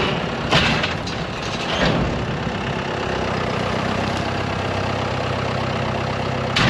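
Large tractor engine running steadily at idle, with two brief noisy bursts about half a second and two seconds in.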